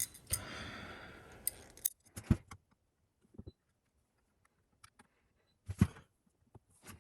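Hardware being handled as a RAM water block is fitted over the memory modules: a rustle for about two seconds, then scattered light metallic clicks and clinks, the loudest a little before the end.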